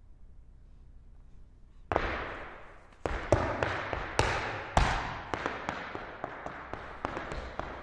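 Irish dance hard shoes striking a hard floor: a loud stamp about two seconds in, then a fast run of sharp heel and toe clicks with a few heavier landings, each ringing briefly in a reverberant room.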